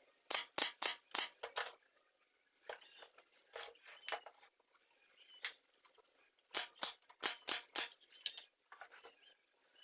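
Irregular runs of sharp taps or clicks, several in quick succession about a second in, again around three to four seconds, and a longer run of about six near the end of the second half. A faint, steady high-pitched chirr drops in and out behind them.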